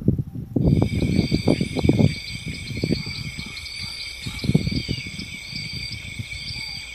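Insects trilling steadily in high, overlapping tones with short repeated chirps, starting about half a second in. Wind buffets the microphone in low gusts, strongest in the first two seconds and again about four and a half seconds in.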